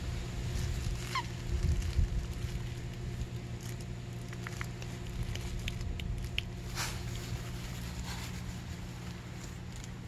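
A dog chewing a pink rubber squeaky toy and squeaking it: one falling squeal about a second in, then several short high squeaks, over a steady low hum.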